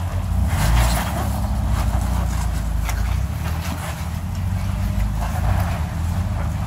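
Off-road vehicle's engine running at low speed while crawling over rocks, with a louder surge about a second in and scattered knocks and scrapes over the steady rumble.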